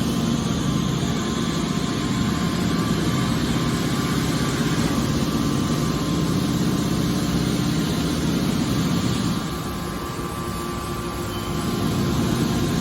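Hydraulic metal baler running: a steady machine drone from its motor and pump, which eases off for a couple of seconds about two-thirds of the way through and then picks up again.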